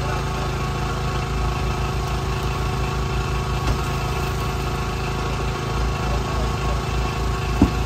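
A vehicle engine idling steadily with a low throbbing rumble, and a single sharp knock near the end.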